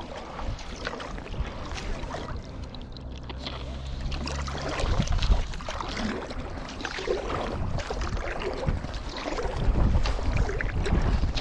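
Paddle strokes and water splashing around a paddle board, heard from a mouth-held bite-mount camera, with wind rumbling on the microphone. A low steady hum sounds for about two seconds near the middle.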